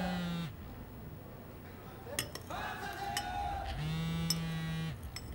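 A woman crying while she eats: long, drawn-out moaning sobs at a steady pitch, one ending just after the start and another about four seconds in. Between them a spoon clinks a few times against a bowl.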